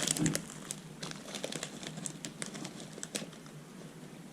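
Plastic snack packaging crinkling and crackling as it is handled, most densely in the first half second, then in scattered crackles.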